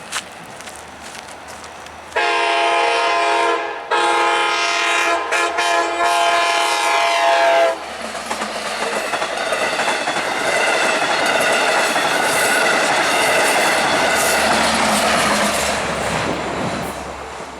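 Nathan K5LA five-chime air horn on an EMD DM30AC locomotive sounding a short blast about two seconds in, then a long blast that cuts off about eight seconds in. The train then passes with steady wheel-on-rail clatter and rumble that fades near the end.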